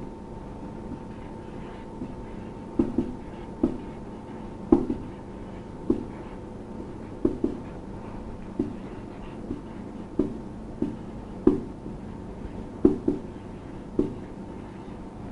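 Marker pen writing on a whiteboard: a string of short taps and scrapes, roughly one a second, as letters are drawn, over a faint steady hum.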